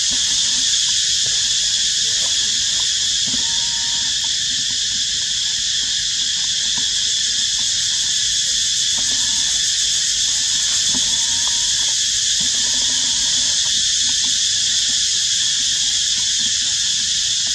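Steady, high-pitched insect chorus, with a few faint short squeaks and clicks over it.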